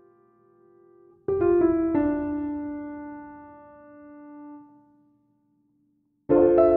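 Background piano music: a chord is struck with a few more notes added just after, ringing and slowly fading, then a brief gap of near silence before another chord comes in near the end.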